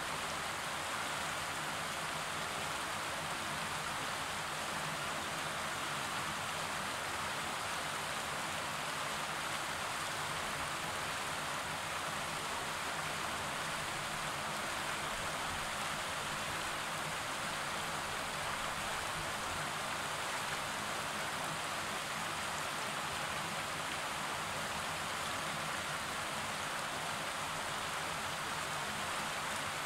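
Fast mountain river rushing over rocks in white-water rapids: a steady, even rush of water.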